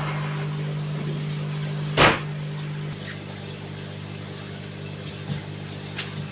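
Steady low mechanical hum of aquarium tank equipment, with a single sharp knock about two seconds in; the hum gets quieter about a second later.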